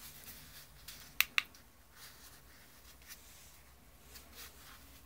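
Quiet room tone with two short, sharp clicks just over a second in and a few fainter ticks, from a hand-held plastic TDS pen meter being handled.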